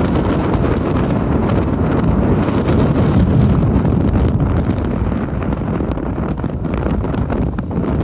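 Strong wind buffeting the microphone over the roar of heavy storm surf breaking on rocks and churning into foam: a dense, steady, low-heavy rush of noise.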